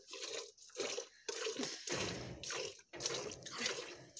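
Cow's milk squirting from the teats into a steel bucket during hand milking: about six hissing spurts into the milk already in the pail, one after another with short gaps, as the hands squeeze in turn.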